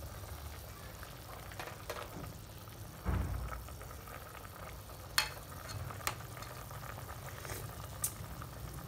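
Soup bubbling at a boil in a stainless steel pot while a metal ladle stirs it, clinking sharply against the pot a few times, with a dull thump about three seconds in.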